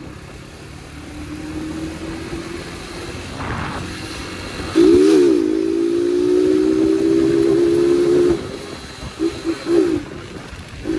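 Yamaha YBR motorcycle's single-cylinder four-stroke engine, with an open air filter and twin exhausts, running at light throttle, then getting much louder about five seconds in as it is opened up. It holds a steady drone that climbs slowly in pitch and cuts off about eight seconds in, with a few short revs near the end.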